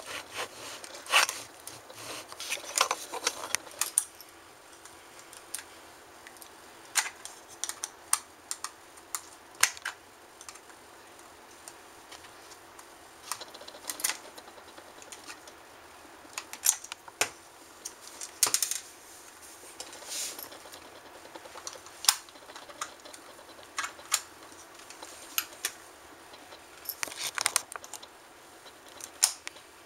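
Irregular sharp clicks and short scrapes of a small screwdriver working screws out of an Xbox 360 wireless controller's plastic shell, with the parts handled between turns.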